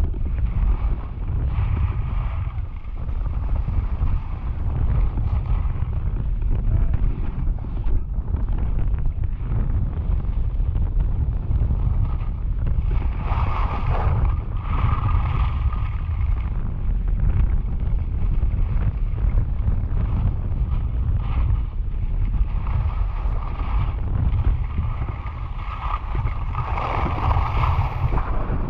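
Wind buffeting the camera microphone during a ski run, a steady low rumble, with the hiss and scrape of skis on packed snow that swells about halfway through and again near the end.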